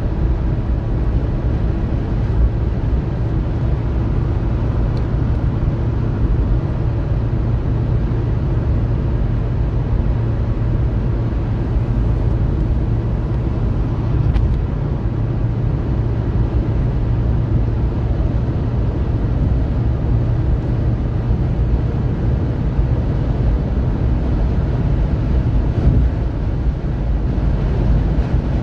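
Steady rumble of a car driving at highway speed, heard from inside the cabin: engine and road noise, low and even throughout.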